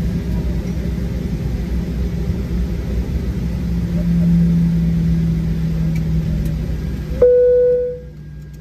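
Steady engine and air noise inside the cabin of a Boeing 737-800 taxiing slowly, its CFM56 turbofans at low thrust. About seven seconds in, a single cabin chime rings out and fades within a second. Then the cabin noise drops sharply.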